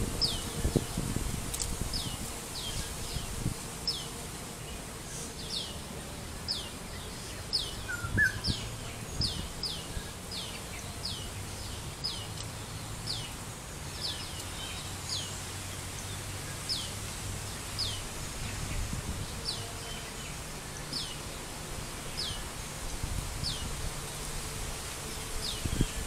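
An animal's call of short high chirps, each a quick downward sweep, repeated about once a second at uneven spacing, over a low steady background rumble of park ambience.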